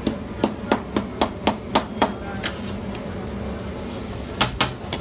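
A metal spatula is struck down onto a large flat metal griddle, chopping green chilies. It makes sharp clacks about four a second for over two seconds, then three more near the end, over a steady hiss.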